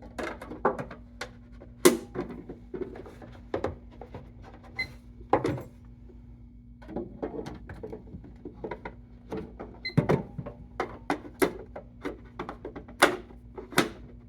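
Irregular knocks, clacks and thuds of jewelry drawers, a lid and winder units being handled and slid into place inside a watch-winder safe, with a sharp knock about 2 s in and another near the end. A steady low hum runs underneath.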